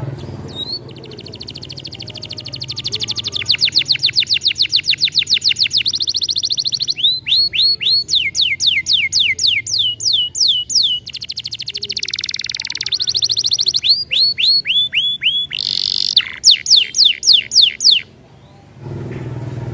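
Domestic canary singing a fast rolling song: long trills of rapidly repeated notes, some as quick high rattles and others as sets of falling whistled sweeps, switching to a new trill every second or two. The song stops shortly before the end.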